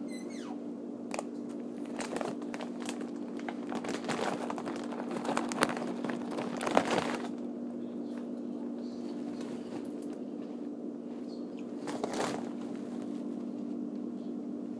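A steady low hum under irregular rustling and scattered clicks, the rustling busiest about six to seven seconds in and again near twelve seconds.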